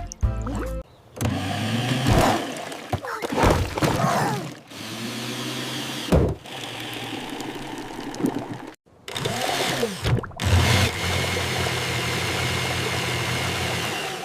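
Electric blender running in several bursts to blend a smoothie, its motor pitch sliding up and down as each burst starts and stops.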